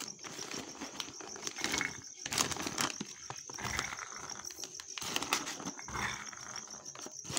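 Shelled green peas scooped with a small bowl and poured into a plastic zip-lock bag, rattling and rustling against the plastic in irregular bursts.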